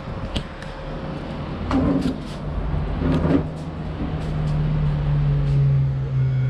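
A vehicle's engine drone that grows louder over several seconds, with a few sharp knocks and clatters about two and three seconds in.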